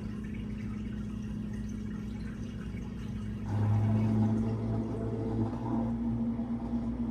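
GE Select GSD3732D01WW dishwasher running, with water noise over a low hum. About halfway through, a pump motor starts and a louder, steady hum takes over.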